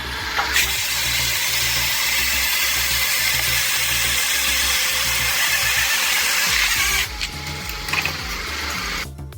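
Homemade saw attachment on a mini excavator cutting through wood: a steady, dense cutting noise from about half a second in until about seven seconds, then a few knocks. Background music with a steady low beat runs underneath.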